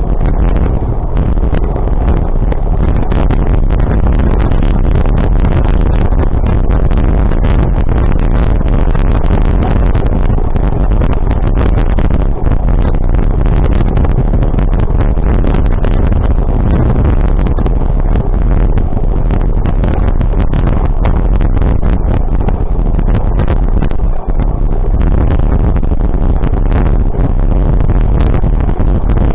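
Loud, steady rumble of a moving vehicle, with wind noise on the microphone.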